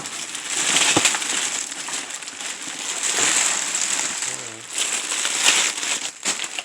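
Plastic bags and food packaging crinkling and rustling as discarded groceries are rummaged through, with a sharp knock about a second in.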